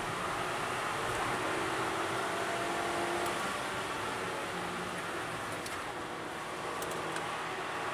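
Suzuki Swift Sport heard from inside the cabin at speed: steady engine, wind and tyre noise, the engine note climbing over the first few seconds and settling lower later, with a few faint clicks near the end.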